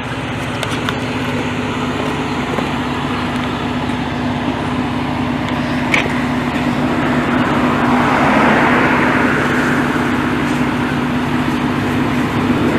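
A large engine, most likely the fire truck's diesel, running steadily with a constant hum. A rushing noise swells and fades about eight seconds in, and there is one sharp click near the middle.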